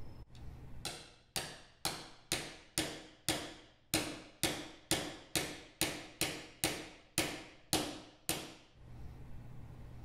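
A mallet strikes a bearing-installation jig to drive the top bearing of a Sumitomo Cyclo gearbox onto its shaft, the jig pressing on the bearing's inner race only. Around seventeen evenly spaced blows land at about two a second, each with a brief metallic ring, and stop near the end.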